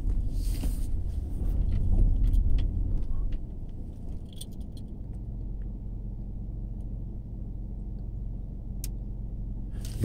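Low, steady rumble of a car, heard from inside, louder and with scattered light clicks and rattles for the first three seconds or so, then settling to a quieter even rumble.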